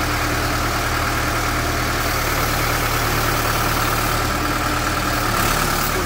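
Case 860 tractor's engine running steadily, with a steady high whine over it, while the backhoe boom and bucket are worked.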